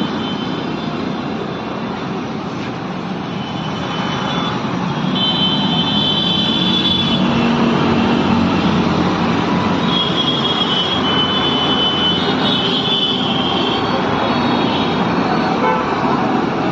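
Gas brazing torch burning with a steady rushing hiss while an aluminium car AC condenser is brazed, growing a little louder about four seconds in, with a high thin whistle coming and going over it.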